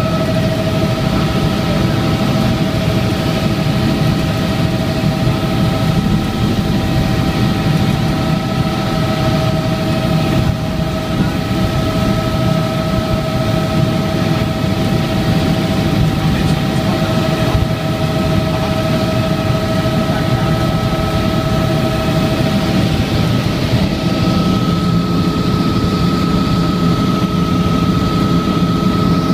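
Helicopter in flight heard from inside the cabin: a loud, steady engine and rotor drone with a constant high whine over it.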